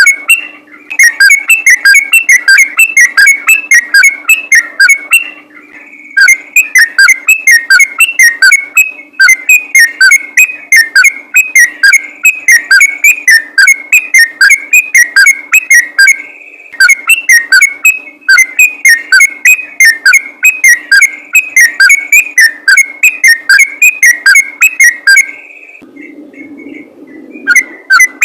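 Yellow-vented bulbul (trucukan) singing its fast 'ropel' song: a rapid, loud run of short clear notes, several a second, with a few brief breaks and a pause of about two seconds near the end.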